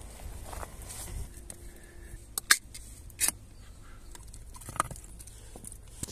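A ring-pull metal food can being opened by hand: a sharp pop about two and a half seconds in, then a second click a little under a second later as the lid is torn back. Handling and rustling noise runs around it.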